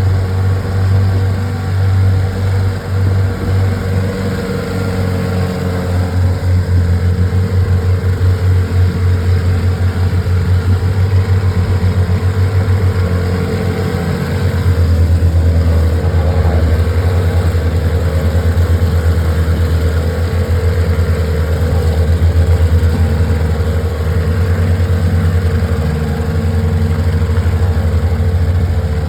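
A 15 hp outboard motor running steadily. It gets a little louder about halfway through.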